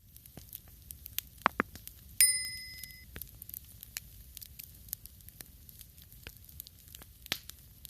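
Food sizzling and crackling in a hot pan, with scattered sharp pops. About two seconds in, a single metallic clink rings briefly on a clear tone.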